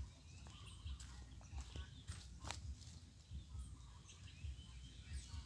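Faint outdoor ambience: a gusty low rumble, with scattered short high chirps and a few sharp clicks, the clearest about two and a half seconds in.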